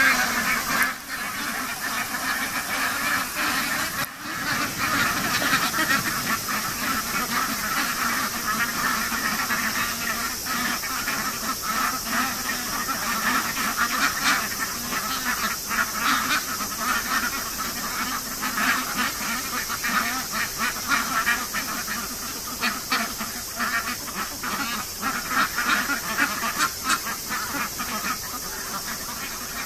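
A large flock of aigamo ducks quacking continuously, many short calls overlapping into a steady chatter.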